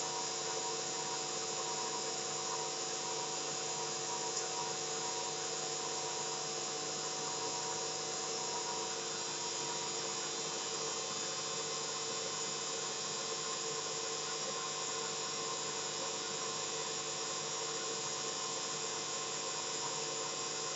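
Vx1 lightning monitor's audio output: a steady static hiss with several steady humming tones underneath.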